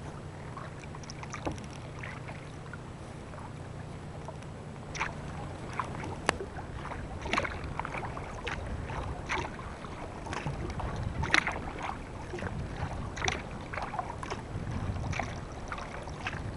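Sea kayak being paddled: small splashes and drips of the paddle blades in the water, coming thick and irregular from about a third of the way in, over a steady low rumble of wind on the microphone.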